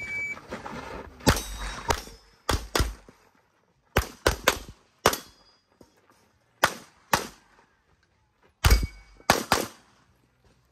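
A shot-timer start beep, then about a dozen pistol shots fired mostly in quick pairs and short strings, with gaps between the groups while the competitor moves through an IPSC stage.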